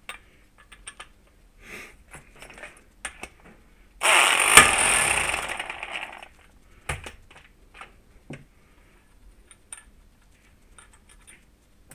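Impact wrench hammering on a flywheel puller for about two and a half seconds to pull the magneto flywheel off a Honda CRF crankshaft, with one sharper crack early in the run. Metal tools and parts clink before and after.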